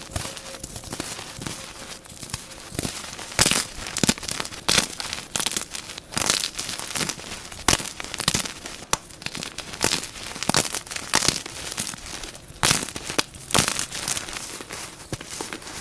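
Gym chalk being crushed and crumbled by hand: a run of irregular dry crunches and crackles, with louder sharp cracks every second or so.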